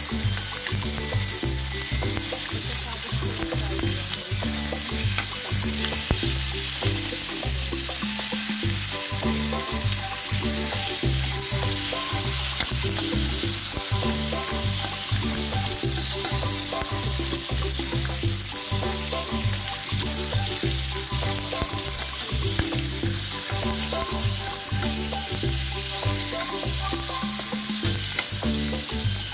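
Strips of bacon sizzling and frying in a nonstick wok, a steady hiss of spitting fat, under background music.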